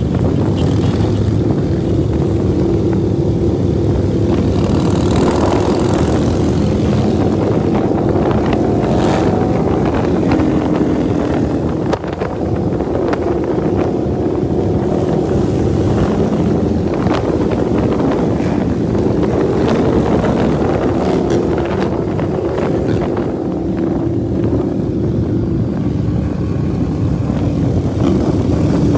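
Engines of a large group of cruiser motorcycles riding together at motorway speed, a steady loud drone heard from a bike among the pack, with wind buffeting the microphone.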